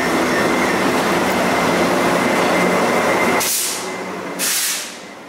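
Taiwan Railways E400-class electric locomotive and its train passing close by as it pulls out, a dense steady rolling rumble with a thin high-pitched tone running through it. About three and a half seconds in the rumble drops away sharply, and two short high hisses follow before the sound fades.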